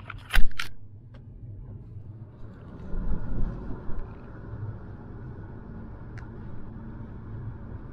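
Car cabin road noise while driving: a steady low rumble. A few sharp knocks in the first second, the loudest of them just under half a second in, as the camera is handled and repositioned.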